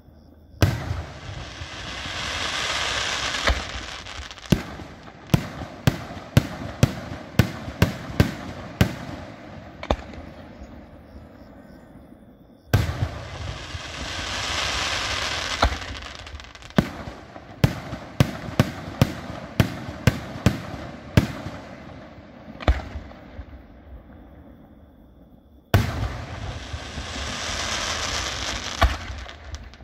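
Aerial fireworks shells bursting. Three times a sudden loud onset swells into a rushing hiss that fades over a few seconds, followed by a quick run of sharp bangs, about a dozen in each run.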